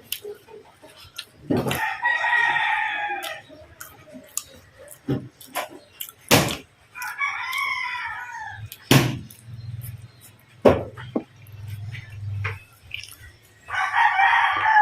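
A rooster crowing three times, each crow about a second and a half long and falling away at the end. Sharp clicks and knocks come in between.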